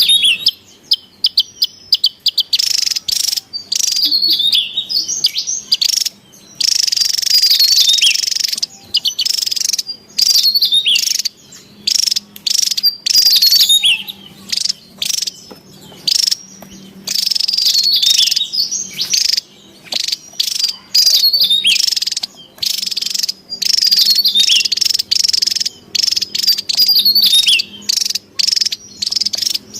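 Javan tesia calling excitedly: bursts of rapid, high chattering notes mixed with quick falling whistles, each burst lasting a second or two, with short gaps between.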